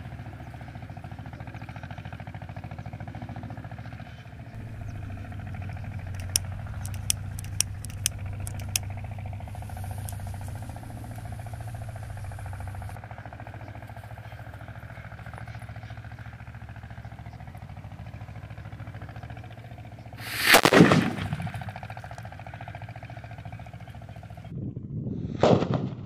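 A homemade firecracker, a short pipe packed with potash-and-sulfur powder, explodes with a loud bang about two-thirds of the way in. A second, shorter bang comes near the end.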